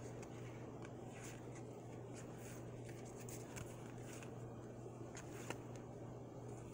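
Trading cards being flipped through by hand: faint papery swishes and light flicks of card stock as each card slides off the stack, with a sharper click about five and a half seconds in, over a low steady hum.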